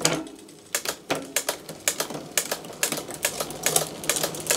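SRAM Eagle 12-speed bicycle drivetrain run by hand on a workstand: a quick run of sharp, irregular clicks, several a second, as the chain is shifted across the cassette cogs to test the shifting after the derailleur has been adjusted.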